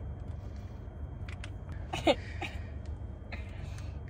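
Plastic soda bottle cap being twisted, giving a few small clicks, over a steady low rumble inside a car; a short vocal exclamation about two seconds in is the loudest sound.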